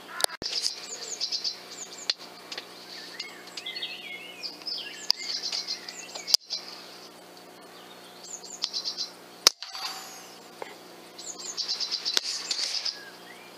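Small songbirds singing and chirping in the woodland, in quick high trills repeated every second or two, broken off abruptly a few times.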